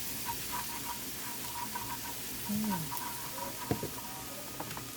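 Garlic sizzling as it sautés in sesame oil in a pan, a steady hiss, with a few sharp clicks of a utensil stirring against the pan in the second half.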